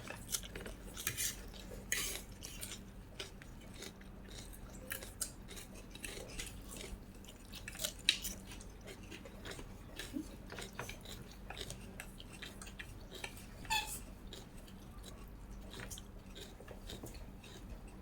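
Close-up eating sounds: irregular chewing and biting clicks, with light clinks of utensils against a dish.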